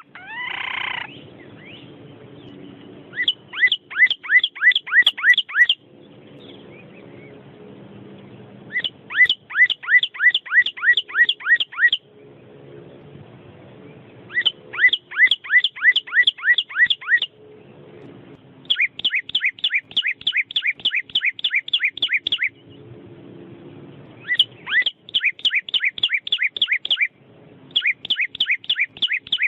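A songbird singing bouts of quick, downslurred whistled notes, about eight a second, each bout lasting two to three seconds, with short pauses between. Near the start comes a single harsher, falling call.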